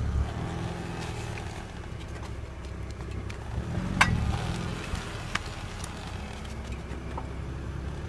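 2008 BMW 328i's straight-six engine running steadily, with a few irregular sharp clicks over it, the loudest about four seconds in. This is the unexplained clicking that the owner is trying to diagnose.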